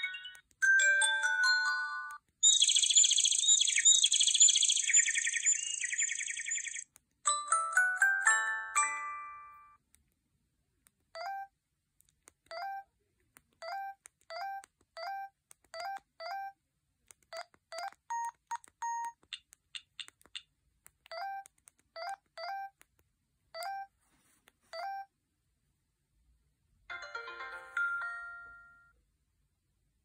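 Huawei U2800 feature phone playing short previews of its preloaded ringtones through its small speaker: a few electronic melodies, one a fast warbling trill. Then come short, evenly spaced electronic beeps, about one a second, as its keypad tones sound, and near the end another short jingle.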